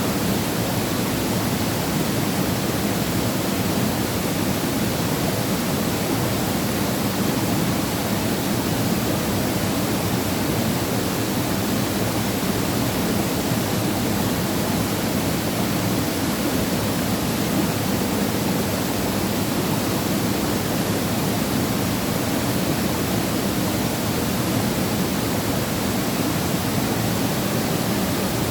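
Waterfall pouring in a steady, unbroken rush of falling water, fullest in the low-middle range.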